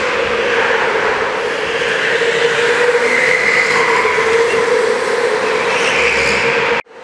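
Go-kart engines running at speed around the track, a steady drone, with one kart passing close about four seconds in. The sound cuts off abruptly near the end.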